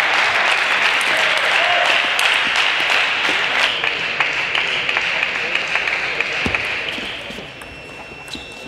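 Audience applauding, dying away about seven seconds in; near the end a table tennis ball is struck a couple of times.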